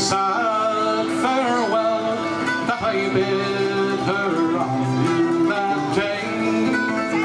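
A man singing a folk song to his own acoustic guitar accompaniment.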